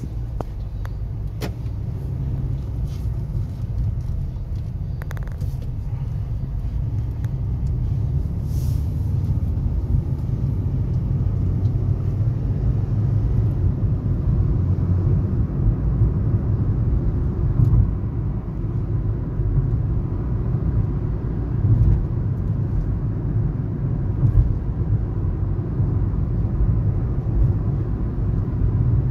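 Car cabin noise while driving: a steady low rumble of the engine and tyres on the road. There are a few brief louder bumps along the way.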